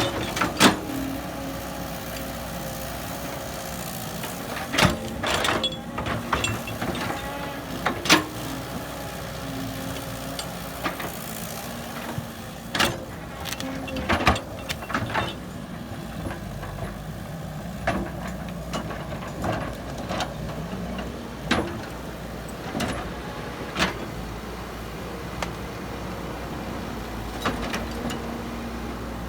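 Excavator diesel engine running steadily, with scattered sharp knocks and clanks of machinery working.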